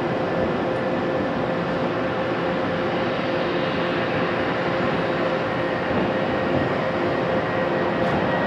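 Boeing 777-200LR's twin GE90 turbofan engines running at taxi power: a steady jet rush with a held whining tone through it.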